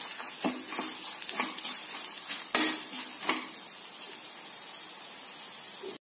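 Ivy gourd slices sizzling in hot oil in a kadai while a perforated steel slotted spoon stirs them, scraping and knocking against the pan about six times in the first three and a half seconds. After that the steady frying sizzle goes on alone.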